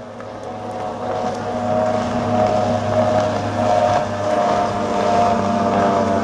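P1 Panther SuperStock race boat's 300-plus-horsepower engine running at speed across open water. It grows louder over the first second or so, then holds steady.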